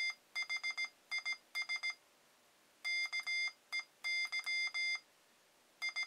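Morse code sidetone beeps from a Morse Tutor keyed with a 3D-printed iambic paddle: one steady-pitched electronic tone sounded in short dots and longer dashes, spelling out 'THIS KEY', with a pause of about a second between the two words.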